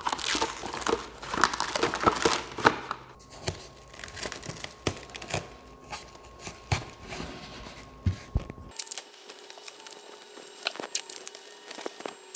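Clear plastic cling wrap being pulled from its roll, torn and crinkled as it is stretched over a plastic tub, with dense crackling for the first three seconds or so, then sparser crinkles and a few handling knocks.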